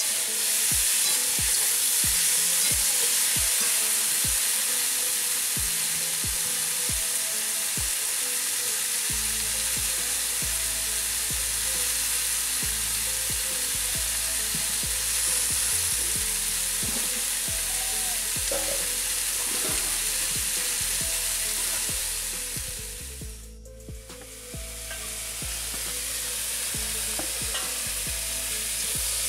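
Chopped vegetables (potato, taro and Malabar spinach stems) sizzling as they fry in oil in a metal kadai, turned with a flat metal spatula. A steady hissing sizzle that drops away briefly about three-quarters of the way through, then resumes.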